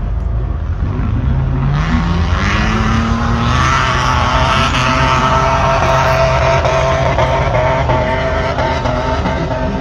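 Motor-racing vehicle engines running, one revving with a pitch that rises over about two seconds, over a continuous noisy hum.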